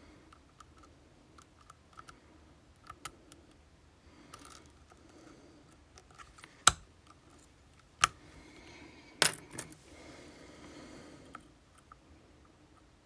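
Small metallic clicks and clinks, with three sharp louder clicks in the middle, as of a pin-tumbler lock and metal tools being handled.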